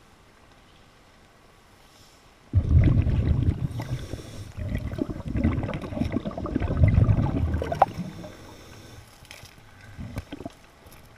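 A diver's exhaled breath bubbling out of a scuba regulator underwater: a sudden low, rumbling gurgle that starts a couple of seconds in, lasts about five seconds and fades away.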